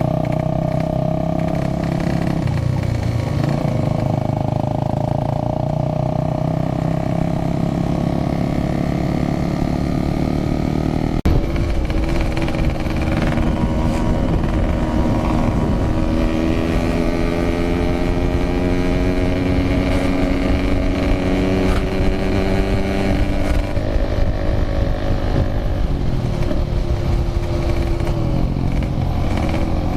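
Yamaha RX-King 135cc single-cylinder two-stroke engine with a Packing Power aftermarket exhaust, running under way. Its note holds steady at first, then rises and falls with the throttle after a sudden change about eleven seconds in.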